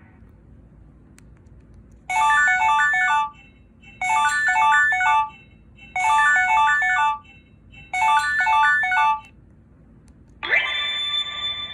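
Sony Ericsson W995 mobile phone playing a ringtone: a short, quick run of electronic notes repeated four times about two seconds apart. Near the end a different tone starts with a quick upward swoop and then holds.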